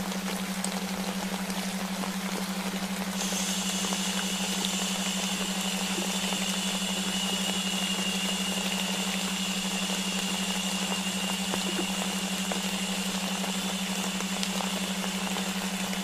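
Layered sleep soundscape: an even rain and white-noise hiss over a steady low delta-wave tone. A higher, brighter hiss comes in about three seconds in and holds steady.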